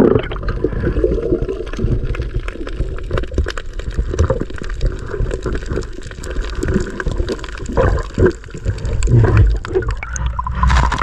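Muffled underwater sloshing and gurgling heard through a submerged action camera, with a strong low rumble and many small clicks. Near the end there is a louder rush as the camera comes up through the surface.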